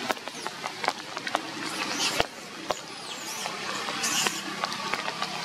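Scattered sharp ticks and taps over a steady hiss, with a few brief high-pitched squeaks about two seconds and about four seconds in.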